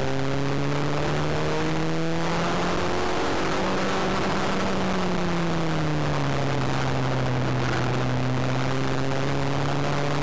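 Ford Fiesta XR2i's 1.8-litre 16-valve four-cylinder engine, heard from inside the cabin while being driven hard on track. The revs climb, fall away over a couple of seconds from about four seconds in, hold low, then begin to rise again near the end, over steady road and wind noise.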